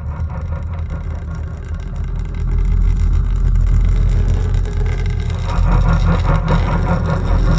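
A deep, steady rumbling drone, growing louder about two and a half seconds in.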